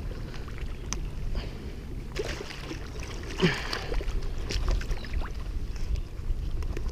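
Shallow water sloshing around a wading angler's legs, with scattered small clicks and rustles of hands threading a caught flounder onto an improvised stringer. There is one louder handling sound about halfway through.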